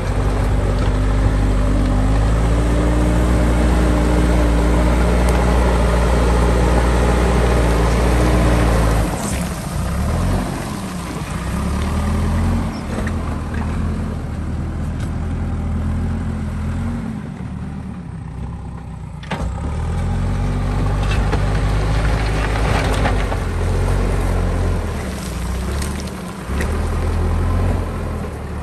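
JCB 3DX backhoe loader's diesel engine working under load. It runs hard and steady for about the first nine seconds, then drops and revs up and down several times as the machine works.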